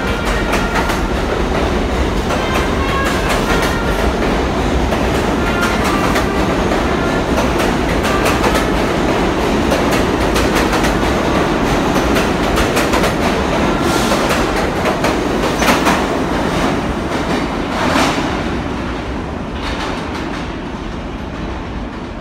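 New York City subway train pulling out of the station: a steady loud rumble with rapid rail-joint clickety-clack and a few louder clatters. The sound fades over the last few seconds as the rear cars enter the tunnel.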